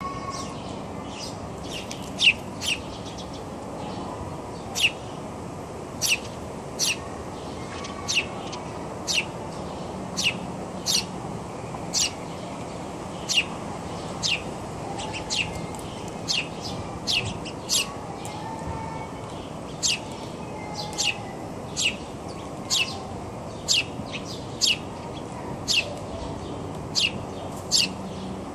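Small birds chirping: short, sharp, high chirps repeating about once a second, sometimes in pairs, over a steady low outdoor background noise.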